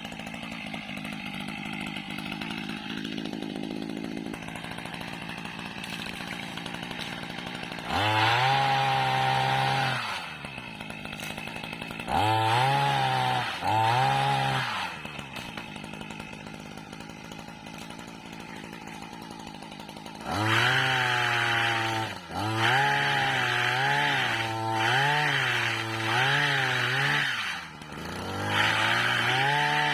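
Small petrol engine of a motorized oil-palm pruning pole (mesin egrek) running at low speed, then revved hard in bursts of a few seconds, four times, the pitch wavering up and down during the longer burst.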